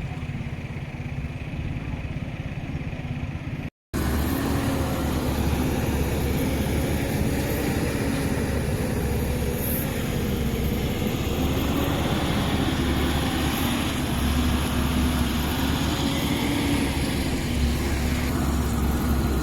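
Engine of construction machinery running steadily with a low hum, cut by a brief gap of silence about four seconds in, after which it is louder.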